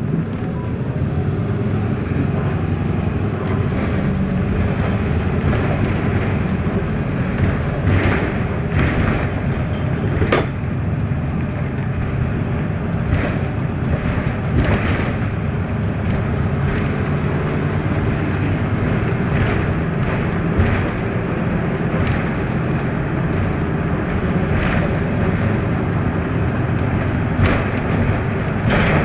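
Interior running noise of a VDL Citea 12 m city bus driving between stops: a steady rumble with a few short knocks and rattles along the way.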